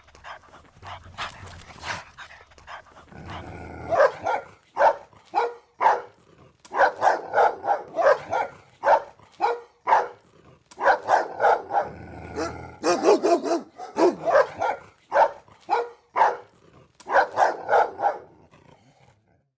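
Angry dogs barking in quick runs of several sharp barks, with a low growl twice between the runs.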